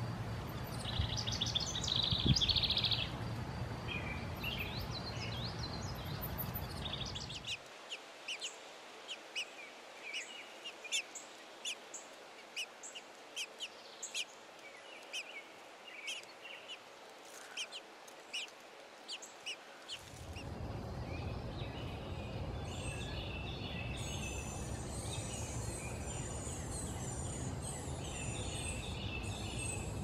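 Small songbirds chirping and singing: a dense burst of song in the first few seconds, the loudest part, then a long run of short high chirps, and thin high twittering near the end. A steady low background hum drops out for about twelve seconds in the middle.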